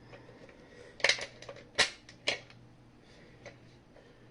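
Several sharp clicks and knocks from hands handling the parts of a taken-apart fire alarm horn strobe. The loudest come in a cluster from about one to two and a half seconds in.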